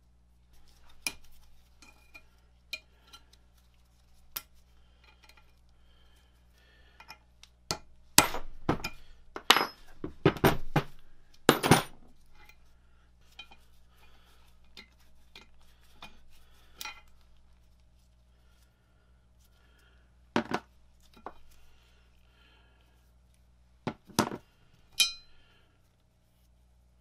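Small steel parts of an Enco turret tailstock's lever mechanism clinking and knocking against its metal casting as they are worked loose by hand. Scattered light clicks, with a burst of loud knocks about a third of the way in and a few more near the end.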